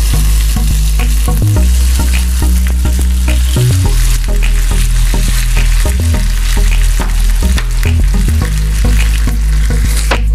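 Chopped onion, tomato and bell pepper sizzling in hot oil in a non-stick frying pan, stirred with a wooden spatula that makes small scraping clicks against the pan.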